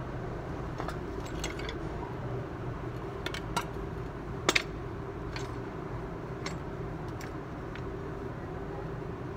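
Metal clinks and clanks as a front strut assembly (shock absorber, coil spring and top mount) held in a screw-type coil spring compressor is handled and turned. There are about eight separate knocks, the loudest a sharp double clank about four and a half seconds in, over a steady low hum.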